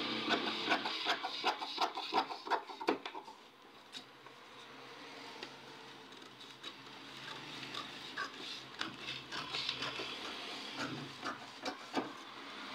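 Scissors snipping through pattern paper: a quick run of cuts in the first three seconds, then quieter, sparser snips toward the end.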